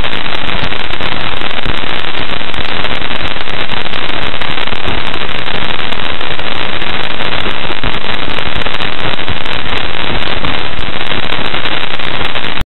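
Parker Solar Probe spacecraft data turned into sound: loud, dense crackling static, the impacts of microscopic dust grains striking the probe near the Sun.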